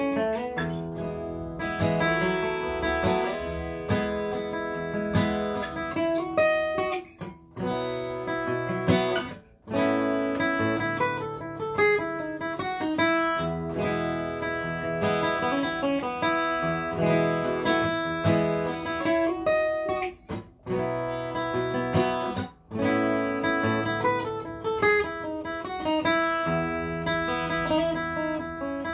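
Solo flat-top acoustic guitar played without singing: picked notes and strummed chords ringing, broken by a few very short pauses.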